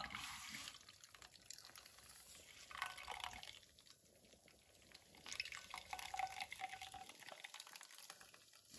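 Faint dripping and trickling of juice into a glass measuring cup as a nut milk bag of blended eggplant pulp is squeezed by hand.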